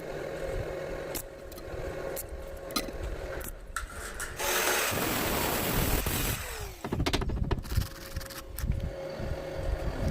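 Metalworking sounds: scraping and knocking, with a harsh, dense hiss for about two seconds in the middle. A short falling tone follows the hiss.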